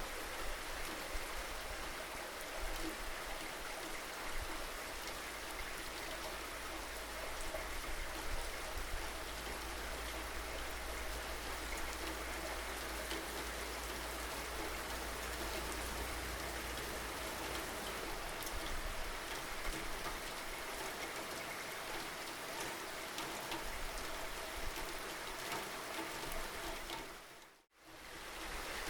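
Steady rain falling, with scattered individual drop ticks over an even hiss. A low rumble underneath fades away about halfway through. Near the end the whole sound fades out to silence for an instant and fades back in.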